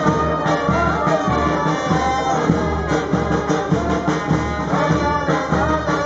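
Street brass band with tubas and trumpets playing a lively tune over a steady beat, accompanying the carnival dancers' procession.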